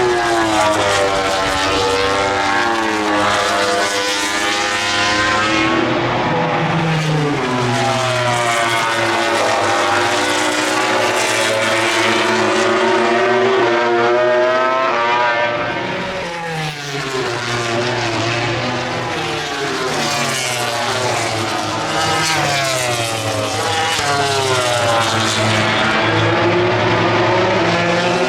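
MotoGP race bikes' four-cylinder engines at full racing revs as several machines pass one after another. The pitch climbs and falls repeatedly, with overlapping engine notes from different bikes. About 16 seconds in the sound briefly drops and falls in pitch before the next bikes come through.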